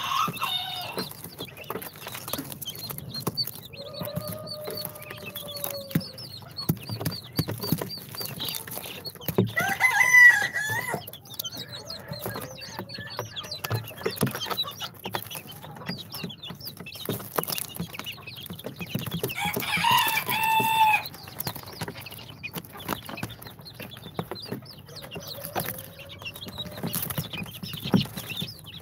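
Baby chicks peeping continuously in a quick scatter of short, high chirps, with two louder, longer peeps about ten and twenty seconds in.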